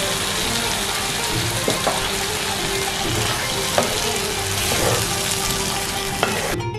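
Spice paste with tomatoes and green chillies sizzling in a nonstick frying pan with a little water added, stirred with a wooden spatula that taps and scrapes the pan now and then.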